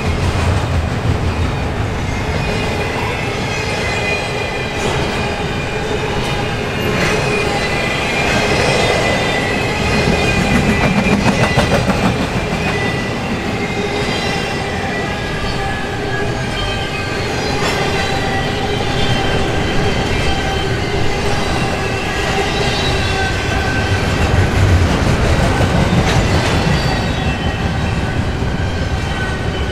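Double-stack intermodal container well cars rolling past on steel wheels: a steady rumble of wheels on rail with occasional clacks, and thin, high, steady squealing tones from the wheels.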